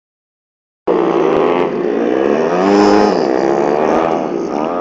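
A pack of speedway motorcycles racing, their single-cylinder engines running loud together and rising and falling in pitch through the bend. The sound cuts in suddenly about a second in.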